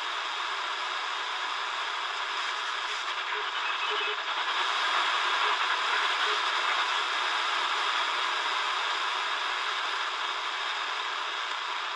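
Shortwave static from a Tecsun DR-910 portable radio's speaker as it is tuned slowly up through the 7 MHz range between stations: a steady hiss that grows a little louder about halfway through, with a few faint short tones.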